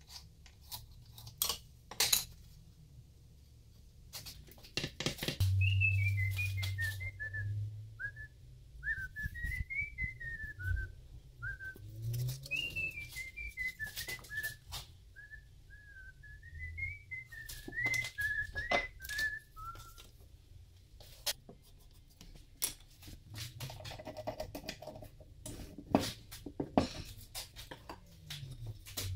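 A person whistling a short tune, the same falling-and-rising phrase twice, amid scattered knocks and clacks of wooden pieces and tools being handled on a workbench.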